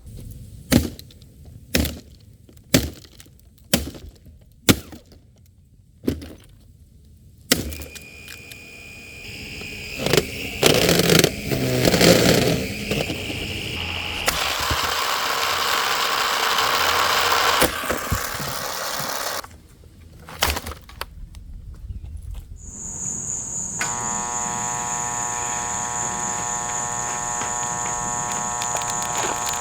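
A Shark Navigator vacuum cleaner being smashed: seven sharp blows about a second apart, then a long stretch of loud crashing and grinding noise and two more knocks. From about three-quarters of the way in, an electric motor runs steadily with a high whine.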